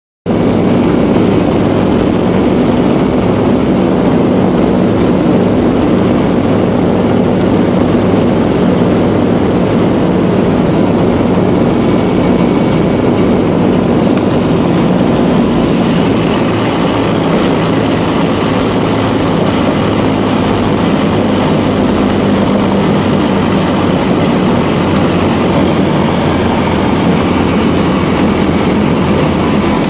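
A Lisunov Li-2's twin Shvetsov ASh-62IR nine-cylinder radial engines and propellers running steadily on final approach, heard from inside the passenger cabin as a loud, even drone.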